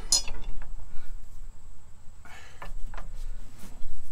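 A long bar straining against bolts in the crankshaft pulley of a seized V8 that will not turn: a few faint metal clicks, a short scrape about two and a half seconds in, and a few light ticks, over a steady low rumble.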